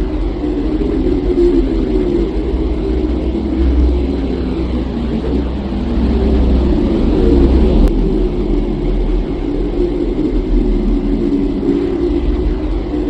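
A loud, steady, deep rumbling drone, with faint sweeps rising and falling higher up.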